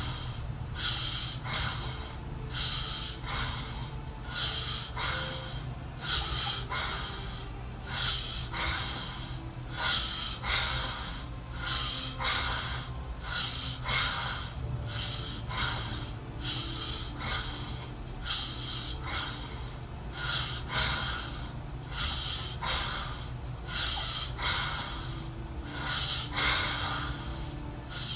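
A sleeping man snoring with rough, wheezy snorting breaths about once a second, over a steady low hum.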